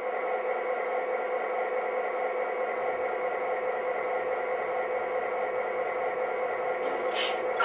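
Lionel F3 model diesel locomotive's onboard diesel engine sound effect, a steady hum played through its small speaker, with a brief higher hiss near the end.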